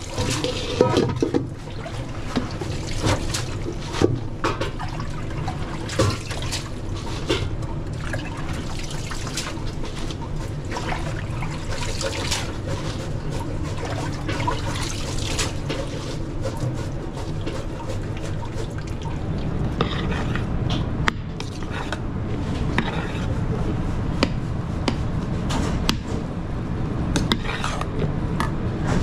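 Water running in a commercial kitchen, with scattered clinks and knocks of utensils and pans over a steady low hum.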